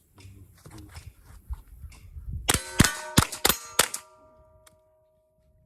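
Five quick .22 rimfire rifle shots about a third of a second apart, each hitting a steel target plate that clangs. The plates ring on for about a second after the last shot.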